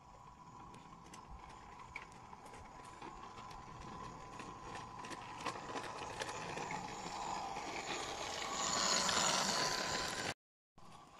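G-scale Simplex model locomotive running along garden-railway track: a steady motor and gear whine with scattered clicks from the wheels, growing louder as it approaches and passes close by. The sound cuts off suddenly just after ten seconds in.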